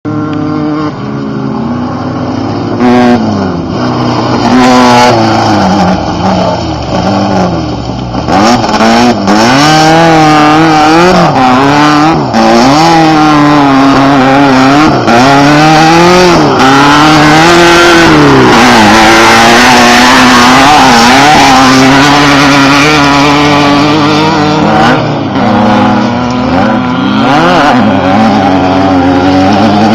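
Two off-road desert race cars driving past at speed, their engines revving up and down over and over as they run through the gears. Loud throughout.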